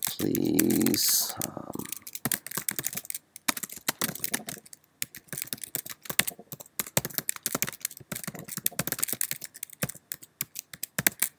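Typing on a computer keyboard: a fast, uneven run of key clicks as a sentence is typed out, after one spoken word at the start.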